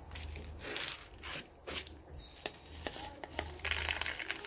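Gritty succulent potting mix poured from a plastic scoop into a pot, in a few short, irregular rattling pours with small clicks between them.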